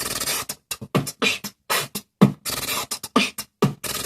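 Vocal beatboxing: a quick, irregular run of short sharp mouth-made snare and kick strokes mixed with longer, hissing noise strokes.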